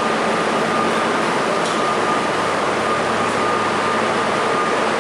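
Steady mechanical noise inside a New York City subway car, with a thin steady whine over an even rushing hum.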